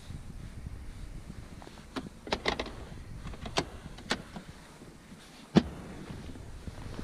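Clicks and knocks of a car's rear centre-console storage lid being opened, closed and handled, a series of sharp clicks with the loudest knock near the end, over a low steady rumble.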